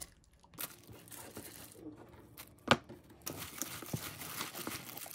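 Disposable plastic glove crinkling as a gloved hand tosses seaweed with red pepper dressing in a plastic bowl, the crackling growing busier from a little past three seconds in. One sharp knock sounds just before that.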